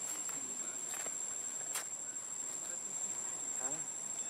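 Insects giving a steady, high-pitched drone, with a few faint short clicks over it.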